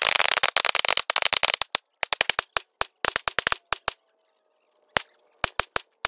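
Gunfire from a line of shooters with AR-style rifles, sped up tenfold, so the shots come as a dense rattle of sharp cracks that thins after about a second into short clusters and scattered single cracks with silent gaps between.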